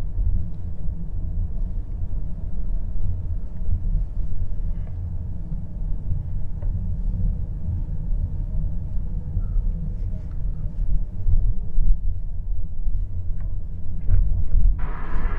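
Steady low rumble of a car driving slowly, heard from inside the cabin. A louder hiss joins near the end.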